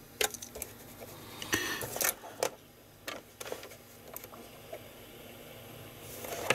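A BBC Microcomputer System Data Recorder cassette deck being handled: a scattering of sharp clicks and knocks from its keys and mechanism, over a faint steady hum.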